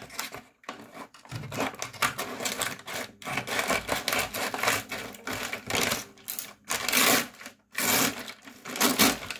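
Kraft-paper mailer bag crinkling and tearing as it is worked open by hand, in irregular rustling strokes with brief pauses.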